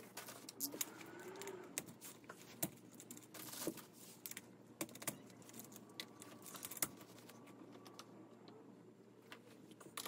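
Irregular clicks, taps and knocks of computer-chair parts being handled during assembly, a few of them sharper.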